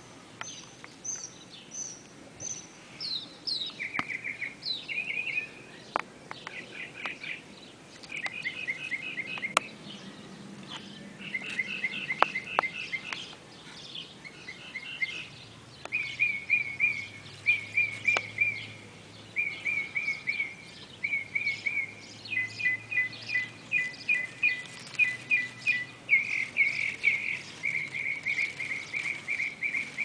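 Chorus of small animal calls: high chirps in the first few seconds, then short, fast pulsed trills repeated over and over. From about 16 s the trills follow one another almost without a break.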